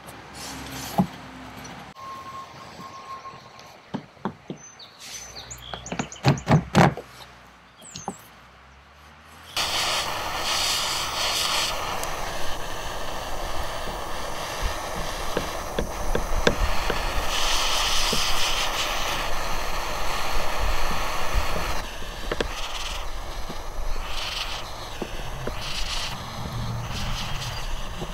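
Small handheld butane torch heating polyethylene for plastic welding: a few sharp clicks, then about ten seconds in the flame comes on with a sudden, steady hiss that runs on.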